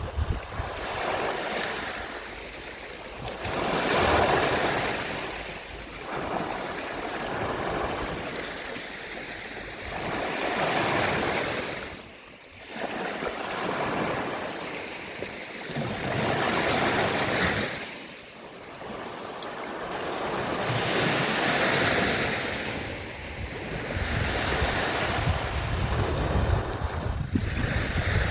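Gentle sea waves washing onto a shore. The surf swells and ebbs in a slow rhythm, one wave every four to five seconds.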